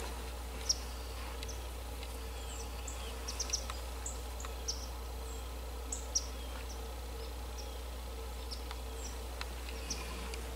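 Outdoor field ambience: scattered short, high chirps at irregular intervals over a steady low hum.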